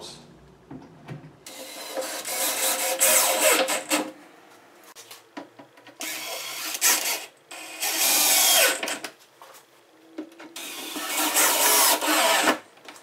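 Cordless drill-driver driving three long wood screws into kitchen cabinet sides, one after another. Each run lasts two to three seconds, with short pauses between them.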